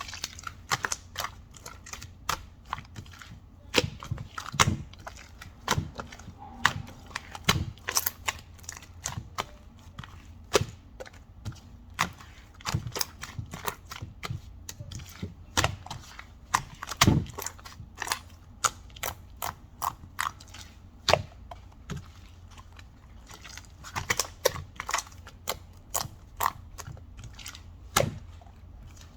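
Irregular sharp clicks and taps, one to three a second with some louder knocks among them, over a low steady hum.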